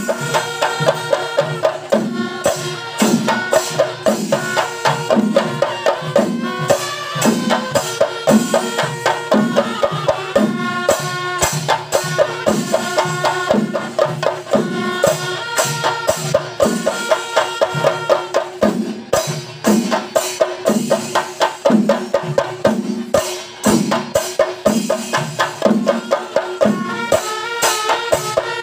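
Kerala melam ensemble: a row of chenda drums beaten with sticks in a fast, steady rhythm, with kuzhal double-reed pipes holding a steady note over the drums and breaking into a run of changing notes near the end.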